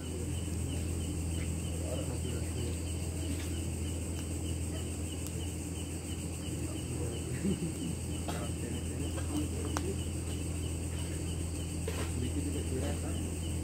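Night-time insects, crickets, chirring steadily over a constant low hum, with a few faint scattered clicks.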